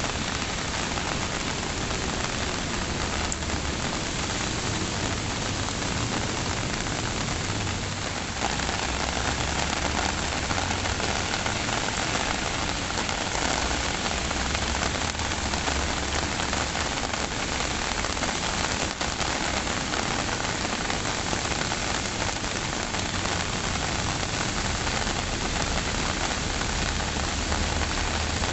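Steady rain falling, a dense even hiss that gets a little louder about eight seconds in.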